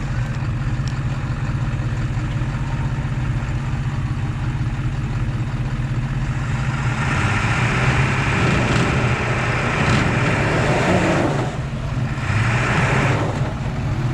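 Truck engines running steadily, with a louder spell of revving under load from about halfway through, broken by two short dips near the end.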